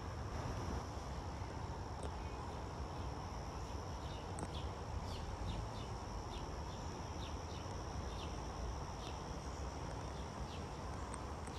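Outdoor summer ambience: a steady high-pitched insect trill, with short chirps scattered through and a low background rumble.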